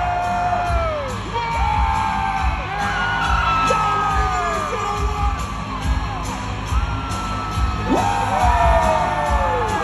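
Loud concert music with a steady bass beat, with voices singing and whooping over it in long falling glides.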